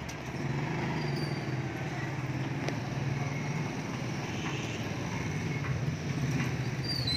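A motor vehicle engine running steadily amid street traffic, with a few light clicks.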